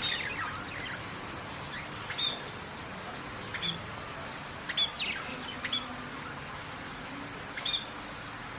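Birds calling: short, sharp chirps, some sweeping downward in pitch, about every one to two seconds over a steady hiss of outdoor ambience.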